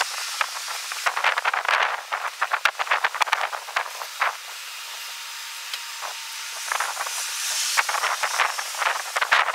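Strong wind on the microphone: a steady hiss broken by clusters of crackling gusts, first from about a second in, then calmer for a few seconds, then gusting again near the end.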